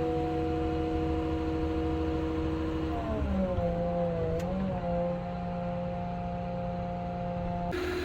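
Wheel loader's diesel engine running with a steady hum. About three seconds in its pitch dips and wavers as the machine is worked, then it settles into a steady note.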